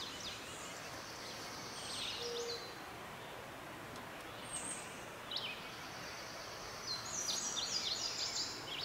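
Songbirds singing in three short phrases of quick, high, stepped notes, the last one near the end the loudest, over a steady outdoor hiss.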